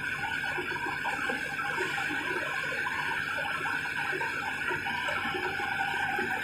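Komatsu D70LE bulldozer's diesel engine running with a steady drone and a flickering mechanical clatter over it.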